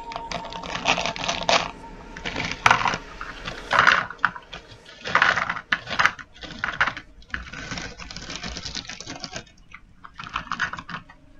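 Crinkly plastic candy bag rustling and crackling as it is handled and shaken, with sour gummy candy rings dropping into a paper cup. The crackling comes in irregular bursts and thins out near the end.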